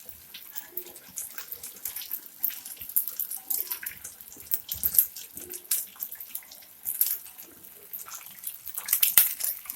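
Batter-coated bread bajji deep-frying in hot oil: a steady sizzle with many sharp crackles and pops. Near the end the pops get louder and more frequent, where cheese leaking out of the bajji makes the oil spatter.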